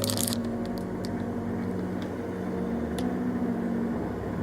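Ambient background music: sustained low synth chords that shift every second or two, with a single sharp click about three seconds in.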